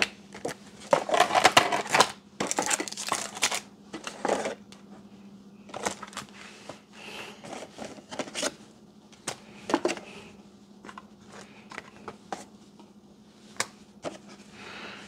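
Packaging being handled: a styrofoam tray and plastic-wrapped radio lifted out of a cardboard box, with rustling, scraping and light clicks and knocks in irregular bursts, busiest in the first few seconds.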